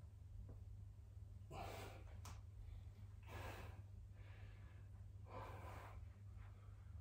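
A man breathing hard from push-ups: three heavy breaths about two seconds apart, with a short click between the first two and a steady low hum underneath.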